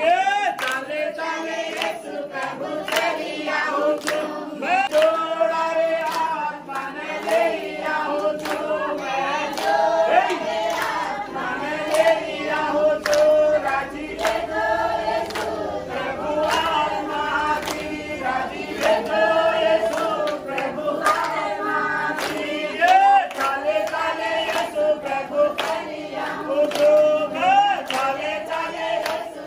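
A group of voices, mostly women, singing a worship song together, with steady rhythmic hand-clapping keeping the beat.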